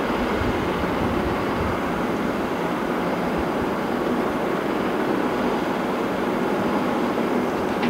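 Heavy diesel machinery running steadily, a constant engine and mechanical noise with a faint low hum.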